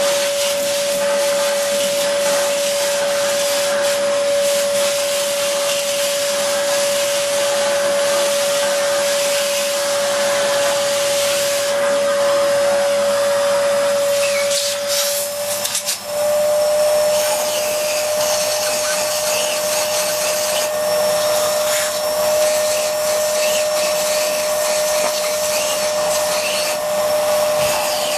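Vacuum cleaner running steadily, a high motor whine over rushing air, as its nozzle sucks concrete drilling dust out of freshly drilled bolt holes. About halfway through it falters briefly and comes back a little higher in pitch.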